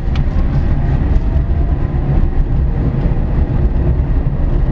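In-cabin driving noise of a BAW Pony S electric city car under way: a steady low road-and-tyre rumble with a faint steady whine from the electric drive motor, and no engine sound.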